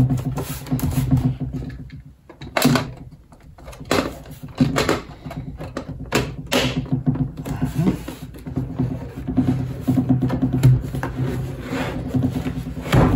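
Plastic case of an APC Back-UPS 1600VA being handled and pressed shut: irregular knocks, clicks and short scrapes of plastic, with a steady low hum underneath.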